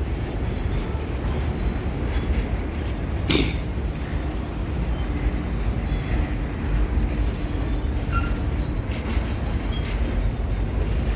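Freight cars of a mixed freight train rolling past: a steady rumble of steel wheels on rail, with a single sharp knock about three seconds in.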